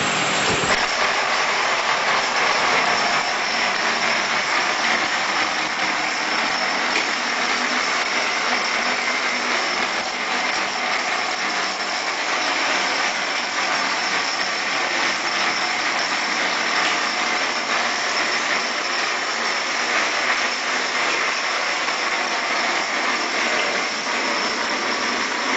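Gear-driven electric motor of an automatic wall rendering machine running steadily as its mortar-filled carriage climbs the mast, pressing cement mortar onto the wall. A thin high whine sets in about a second in and holds over the machine's steady noise.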